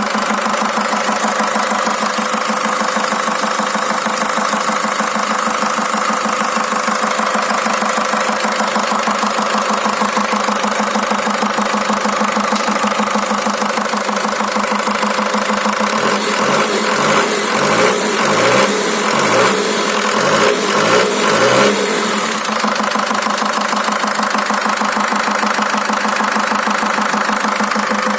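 Ford Transit 2.5 (4DA) diesel engine idling with a dull knock, cause unknown. About 16 seconds in it is given a string of short throttle blips for about six seconds, then settles back to a steady idle.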